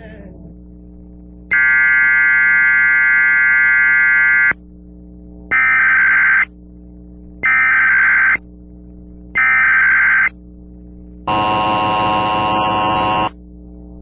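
Emergency Alert System broadcast signals: a three-second electronic tone, then three one-second bursts of SAME data a second apart, then a lower, buzzier two-second tone. This is the start of an Emergency Action Termination alert.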